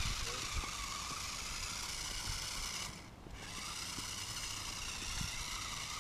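Electric motor and gears of a remote-control rock-crawler truck whining steadily as it drives, cutting out briefly about three seconds in and then picking up again.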